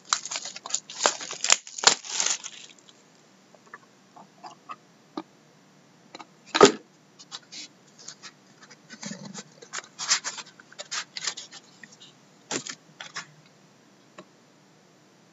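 A sealed hockey card box being slit open and handled. First comes a dense run of scraping and tearing at the seal, then scattered clicks and scrapes of the lid and cardboard, with one sharp knock about six and a half seconds in.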